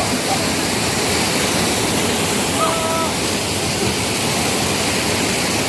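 Water rushing steadily over a small stream weir, a dense, even roar. About halfway through, a voice calls out briefly.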